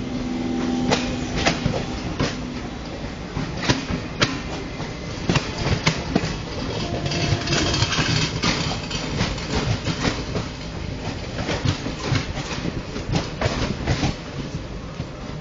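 Train wheels clattering over rail joints as the coaches of the 12245 Duronto Express pass close by: sharp, irregular clicks over a steady rumble.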